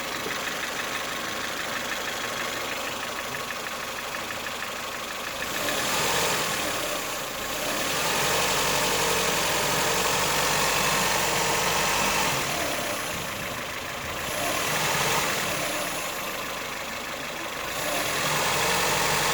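Ford Fiesta 1.4 four-cylinder petrol engine idling with a distinct knock, speeding up and dropping back several times. The knock smooths out at higher revs and returns as the engine falls back to idle.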